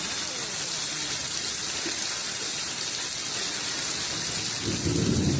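Steady rush of running water, with a louder low sound breaking in about five seconds in.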